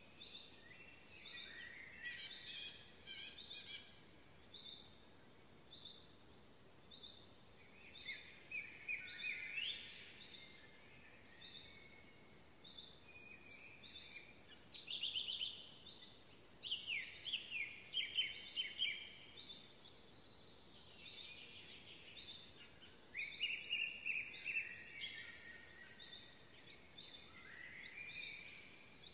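Songbirds singing: one repeats a short high note roughly every second, while another sings louder phrases of quick falling trills several times, over a faint outdoor hiss.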